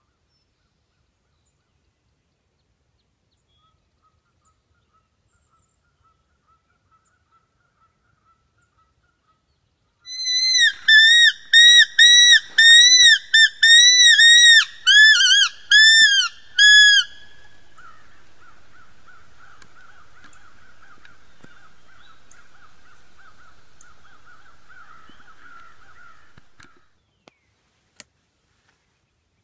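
Predator call sounding a run of about a dozen short, loud squealing distress cries, each rising and falling, over about seven seconds, the kind of call used to lure coyotes in. A much fainter wavering tone follows for about ten seconds and stops, then a single click near the end.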